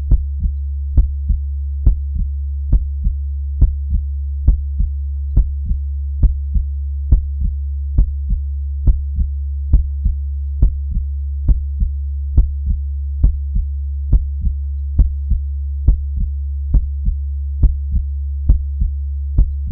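Heartbeat sound: slow, steady lub-dub pairs, a strong beat followed closely by a softer one, at about seventy beats a minute, over a constant low hum.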